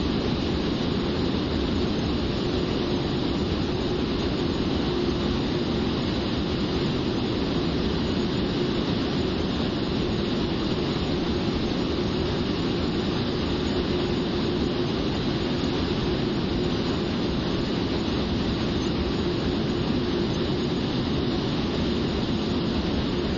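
Steady, unchanging roar of jet engines and rushing air heard inside the cockpit of a Blue Angels F/A-18 in flight, deepest in the low range with a faint steady hum.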